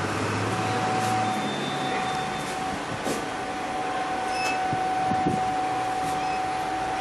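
Steady air-handling hiss in an elevator car, with a constant thin whine setting in about half a second in and a few light clicks.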